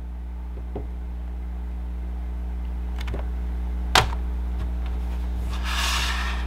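Handling noises on a workbench as a battery is weighed on a small scale: a few light clicks, a sharp knock about four seconds in, and a short rustle near the end, over a steady low hum.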